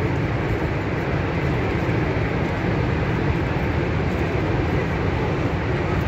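Horseshoe Falls at Niagara, water pouring over the brink with a steady, deep rushing sound that never lets up.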